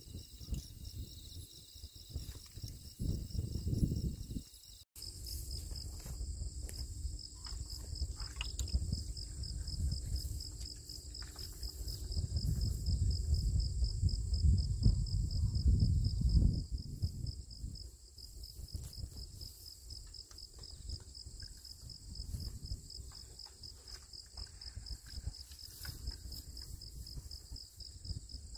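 Crickets chirping in a steady, fast-pulsing trill, whose pitch shifts after a brief dropout about five seconds in. A low rumble underneath swells in the middle.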